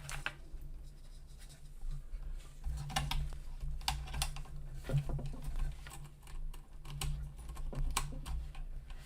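Scattered light clicks and taps of hands handling cables and small parts while wiring a 3D printer's power terminals, with a low hum that comes and goes.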